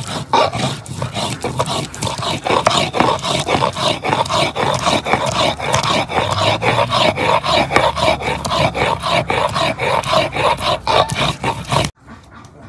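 Shil-pata grinding stone in use: the stone roller is rubbed back and forth over the stone slab in a quick, even rhythm, grinding onion, ginger and garlic to a paste. The sound cuts off abruptly near the end.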